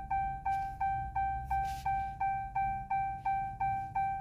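A 2015 Ram 1500's dashboard warning chime beeps over and over, about three identical beeps a second. It is the key-in-ignition chime sounding while the new key sits in the ignition during key programming.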